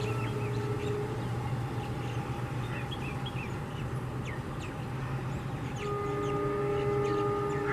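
WDP4D diesel locomotive's horn giving a steady multi-tone blast that stops about a second in and sounds again near the end, over a low steady rumble from the locomotive.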